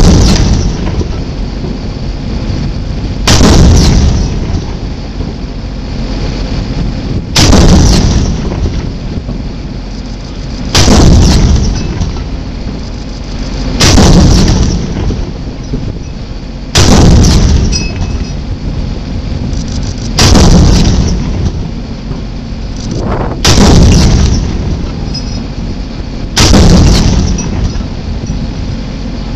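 A 40 mm saluting battery firing a gun salute: nine loud cannon shots, one about every three seconds, each boom trailing off, with steady background noise between the shots.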